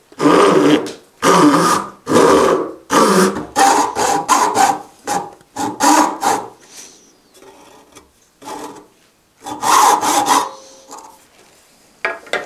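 Handsaw cutting a shallow groove into the end of a wooden dowel held in a vise: about a dozen push-pull strokes, the first three slow and long, then quicker shorter ones, a pause, and a last few strokes. A short knock near the end.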